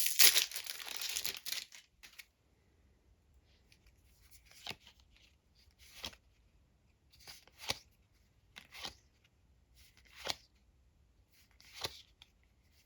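A foil trading-card booster pack being torn open, then the cards slid one by one from the front of the stack to the back, a short soft swish about every second.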